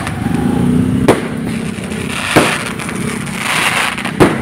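Aerial fireworks display: three sharp bangs of shells bursting, roughly a second or more apart, with steady noise between them.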